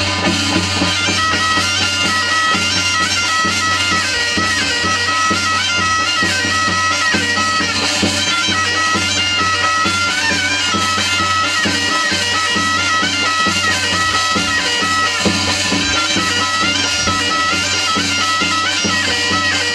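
Korean shamanic ritual music: a nasal double-reed pipe plays a wavering, stepping melody over a steady low drone and regular drum strokes, starting right at the outset and running on without a break.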